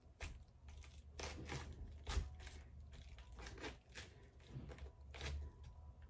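Kitchen knife being forced down through a whole head of green cabbage, the leaves crunching and cracking in irregular strokes, about two a second. The blade is struggling, which she puts down to not having a real knife.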